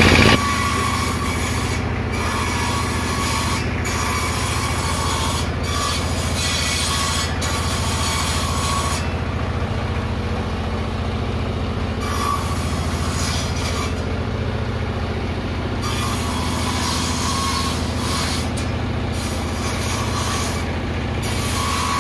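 Circular sawmill machine running steadily without cutting: an even mechanical drone, with a few faint clicks.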